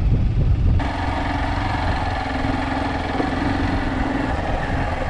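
Motorcycle engine running while riding, with wind rushing over the microphone. The sound changes abruptly about a second in, then carries a steady hum.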